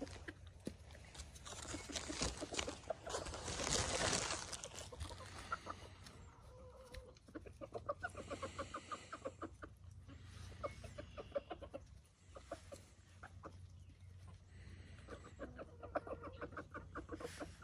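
Backyard hens clucking in quick runs of short clucks while they feed on scattered bread. Rustling noise fills the first few seconds before the clucking starts.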